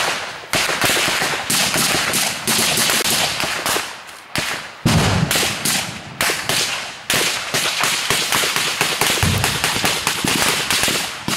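Small-arms gunfire in a firefight: many sharp shots, several a second and irregular, often overlapping. Two heavier, deeper reports come about five and about nine seconds in.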